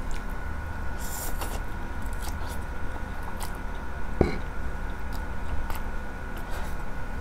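Close-miked eating of palabok rice noodles: the noodles are drawn in and chewed in short wet bursts, with a sharp click about four seconds in. A faint steady hum runs underneath.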